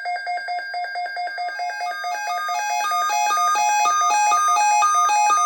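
Electronic keyboard music: one note repeating about four times a second, joined after a second or two by a stepping melody of higher notes, growing louder.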